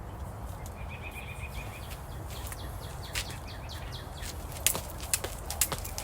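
Outdoor ambience with a steady low rumble and a short, high bird-like trill about a second in, followed by a series of sharp taps or steps that grow louder in the second half.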